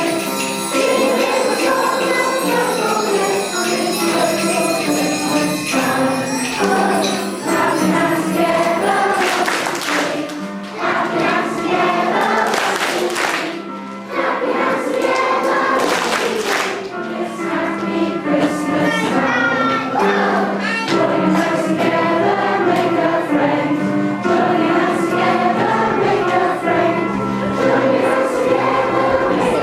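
A school choir of children singing, with jingle bells shaken along, loudest around the middle.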